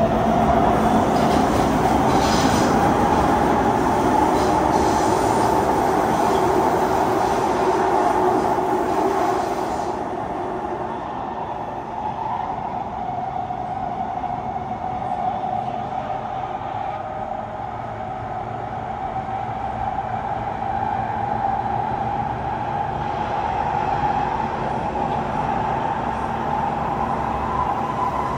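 Kawasaki C151 MRT train running in an underground tunnel, heard from on board: continuous rumbling running noise with a sustained high tone that drifts slowly in pitch. The noise is louder for about the first ten seconds, then drops and stays quieter.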